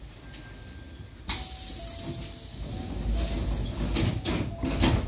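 Hankyu train's double sliding doors closing. A sudden hiss of air starts about a second in, then the door leaves slide shut and meet with a thud near the end.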